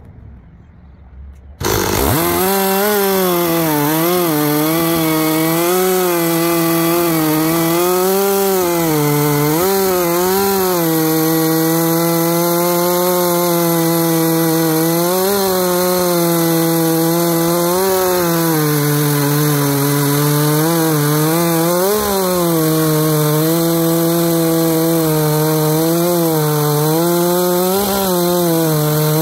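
Gas chainsaw at full throttle ripping lengthwise through an apple log on a rail-guided milling jig, its engine pitch dipping and recovering every second or two as the chain loads in the cut. It comes in abruptly about two seconds in.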